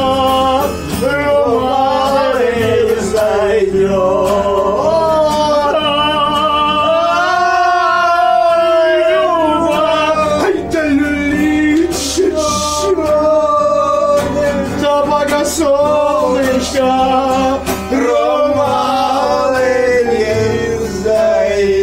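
Men singing a song together to an acoustic guitar, with long drawn-out notes.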